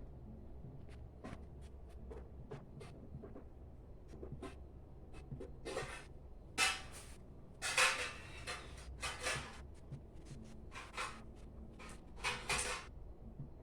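Handling noises: scattered light clicks and short rustles, with several louder rustles from about six seconds in, over a steady low hum.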